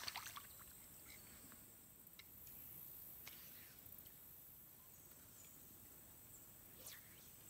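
Near silence: faint outdoor ambience with a steady high-pitched hiss, opening with one sharp click and broken by a few faint ticks.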